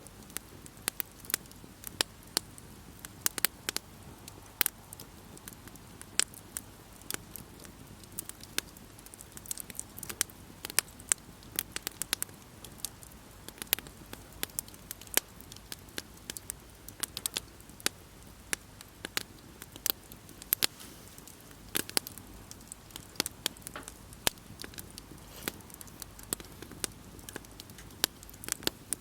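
Campfire burning wood and crackling: irregular sharp pops and snaps, several a second, over a low steady hiss.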